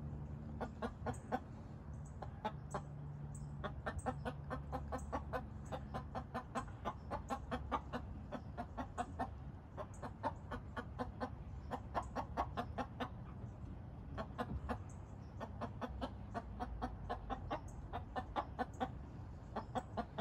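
Rhode Island Red hens clucking on and on in short, quick notes that come in clusters.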